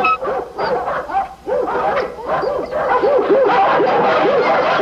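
Several dogs barking at once, their barks overlapping thick and fast and growing louder and denser about halfway through.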